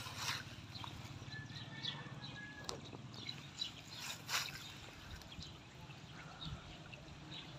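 Faint outdoor ambience over a low steady rumble, with scattered high bird chirps and a few short scraping noises near the start and about four seconds in.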